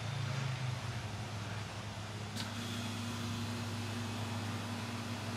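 Steady low mechanical hum, like a running motor; a short click about two and a half seconds in, after which a second, higher hum joins.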